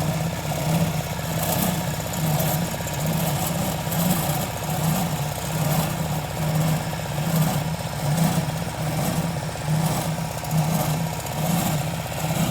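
Engine of a piece of construction equipment running steadily, its level swelling and easing about once a second.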